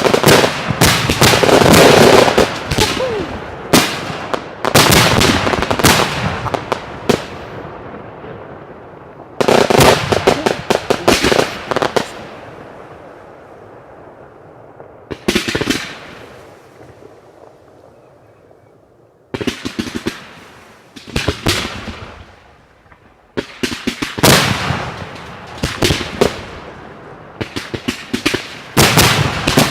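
Aerial fireworks display heard close to the firing site: volleys of shell bursts, bangs and crackling come in clusters every few seconds, with a longer lull about halfway through.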